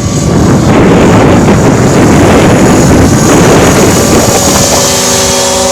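Heavy wind buffeting the microphone, with a radio-controlled model helicopter running underneath. Near the end the wind eases and the helicopter's steady multi-tone whine comes through more clearly.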